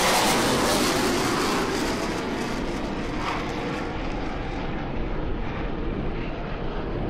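Twin jet engines of a Blue Angels F/A-18 Hornet climbing away after take-off: a steady roar, loudest at first, whose hiss dies away about halfway through as the jet recedes.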